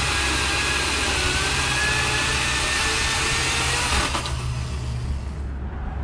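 Ryobi 40V HP brushless cordless chainsaw cutting through a log: a steady electric-motor whine with the chain chewing wood. About four seconds in the sound drops off as the chain comes out of the cut and the saw winds down.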